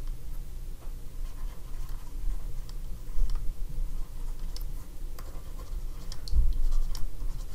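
Stylus scratching and tapping on a tablet surface while handwriting words, in many short strokes, over a steady low hum.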